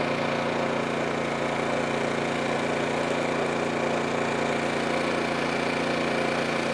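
A small engine running steadily on a bowfishing boat, a constant even hum with no changes in speed.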